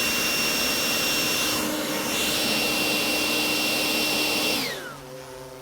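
High-speed blower running flat out, a steady rushing blast of air with a high whine, blowing into a hovering drone. Near the end it is switched off and the whine falls away as the motor spins down.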